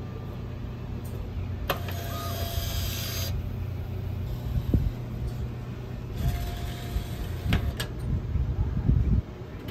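Cup vending machine's motorised delivery door: a click and a short motor whir about two seconds in as it opens when the drink is ready, then another click and whir around six seconds in, over a steady low hum. Low handling thumps near the end.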